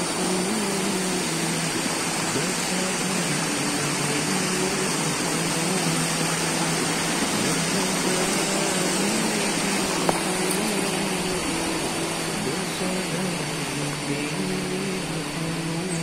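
Background song with a wavering sung melody, laid over a steady hiss.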